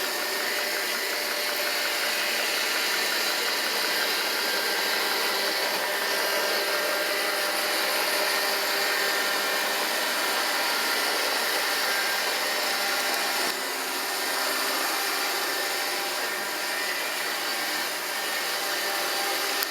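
iRobot Roomba 780 robot vacuum running steadily, its motors humming under a broad hiss of suction and brushes.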